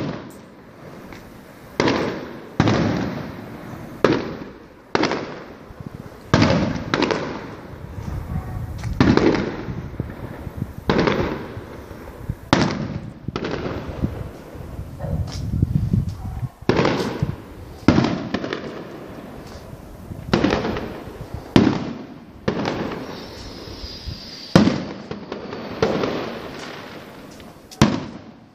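Aerial firework shells bursting in a rapid series, a bang every one to two seconds, each trailing off in a rumbling echo. A faint falling whistle sounds about two-thirds of the way through.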